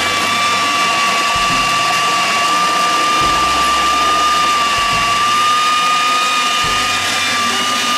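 Electric food processor motor running steadily at full speed with a high, even whine, grinding raw tilapia fillet into a paste.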